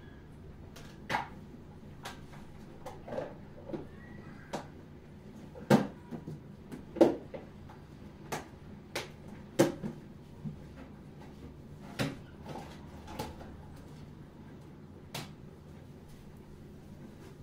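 Irregular clatter and knocks of kitchen items, cupboard doors or drawers being handled and set down during cleaning and tidying, the sharpest about six, seven and nine and a half seconds in. A steady low hum runs underneath.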